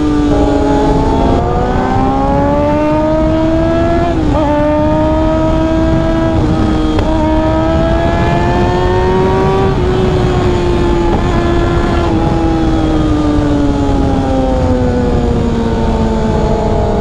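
Motorcycle engine under way. Its pitch drops sharply twice early on as gears are shifted, climbs slowly, then falls away gradually as it slows, over a heavy low rumble of wind on the microphone.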